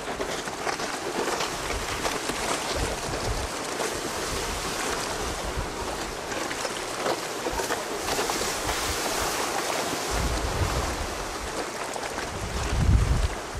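Wind buffeting the microphone over the hiss of surf and choppy sea. Heavy low rumbling gusts come about ten seconds in and again just before the end; the second is the loudest.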